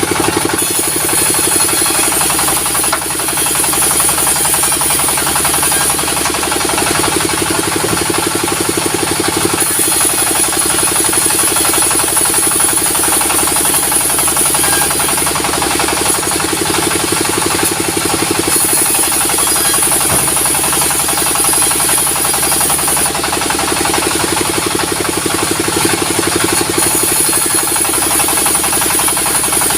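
Sawmill machinery running steadily, a motor-driven saw. A high hiss rises and fades every few seconds over the steady running.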